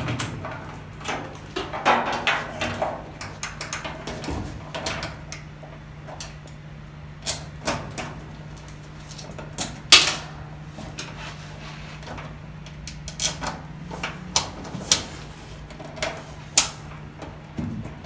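Hands fitting a new plastic door switch into a Whirlpool dryer's door frame: scattered irregular clicks and knocks of plastic against the sheet-metal cabinet, the loudest about ten seconds in, over a faint steady hum.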